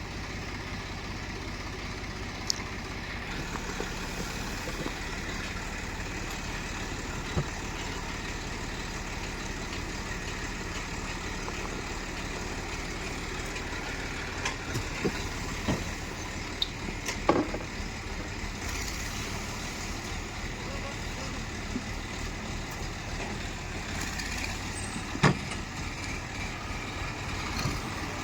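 Heavy diesel machinery running steadily at a worksite, from a backhoe loader and tractors, with scattered short knocks and clanks.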